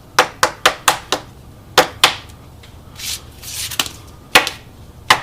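Trading cards being handled on a table: a quick run of sharp clicks and taps, then a brief rustle of cards sliding, then two more taps.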